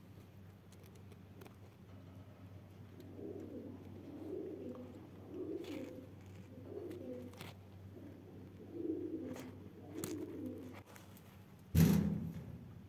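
Pigeons cooing: a run of low coos through the middle, over a steady low hum, then a sudden loud thump near the end.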